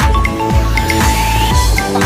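Electronic background music with a steady beat of about two drum hits a second, held synth notes and a rising sweep near the middle.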